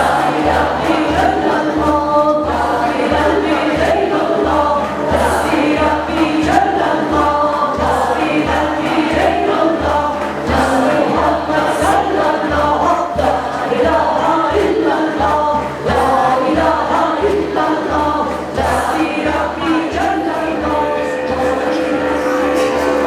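Many voices singing together over a steady low drumbeat at about two beats a second.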